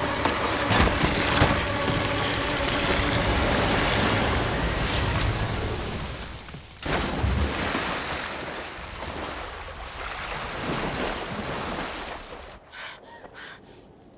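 A loud rushing, surging noise from a horror film's sound design. It breaks off briefly about seven seconds in, returns with a low thud and slowly fades, giving way near the end to a few short gasping breaths.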